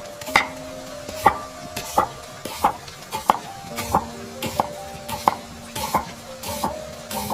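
Kitchen utensil knocking at an even pace, about one and a half strikes a second, each a sharp click with a short ring, between soft hissing scrapes, as in cooking prep.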